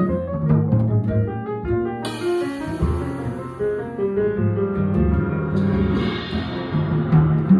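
Live jazz quartet: piano notes over double bass, with the drummer playing mallets on the toms and cymbals. A cymbal crashes about two seconds in, and a cymbal swell rises around six seconds.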